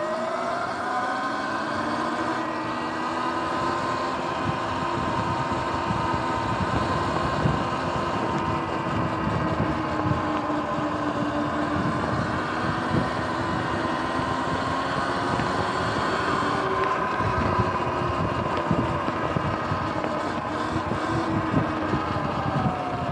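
Sur-Ron electric dirt bike's motor whining, rising in pitch as it speeds up, holding a steady pitch while cruising, then falling in pitch as it slows near the end. Wind rushes and buffets over the microphone throughout.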